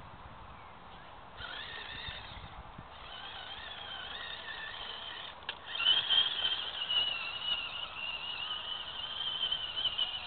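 Axial AX10 rock crawler's electric drive motor and gears whining as it drives on grass, the pitch wavering with the throttle. It starts about a second and a half in, drops briefly, then runs on and is loudest from about six seconds, with a single click just before.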